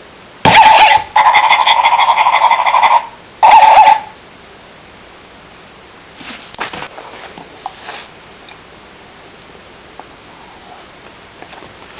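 A squeezable toy ball that barks sounds off three times in the first four seconds: a short call, a long one of nearly two seconds, then another short one, all loud and steady in pitch. Quieter scuffs and clicks follow from about six seconds in as the dog noses the toy on the rug.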